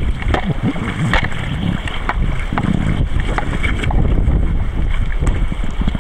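Wind rumbling on the microphone over the wash of river water around an inner-tube raft, with many small scattered splashes.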